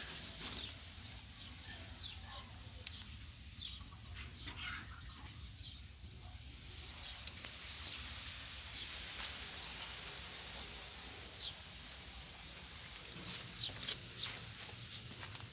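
Outdoor ambience: scattered short high chirps and clicks over a steady low hum.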